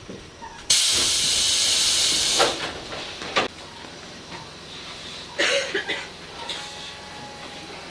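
A Tobu 8000 series electric train's compressed-air system lets out a sudden, loud hiss for about a second and a half. A sharp knock follows about a second later, and a shorter clatter comes after that.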